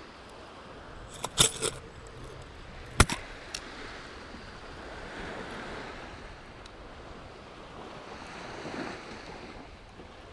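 Small waves washing onto a sandy beach, with wind; the wash swells twice in the second half. A few sharp knocks come about one and a half and three seconds in.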